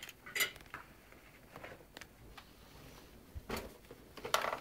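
Scattered faint clicks and taps of a high chair's plastic seat-belt buckle being handled and pushed together.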